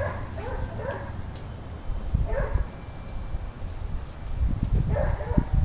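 A dog barking a few times, short calls about a second in, midway and near the end, over a low rumble.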